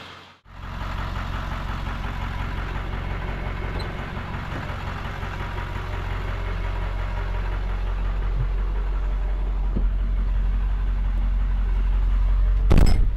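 7.3 Powerstroke V8 turbo diesel with freshly replaced fuel injectors running, heard from inside the cab, slowly getting louder as the truck sets off; the driver says it already sounds better. A loud thump near the end.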